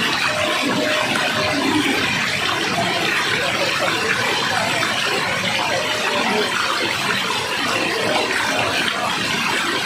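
Steady, unbroken rush of falling water.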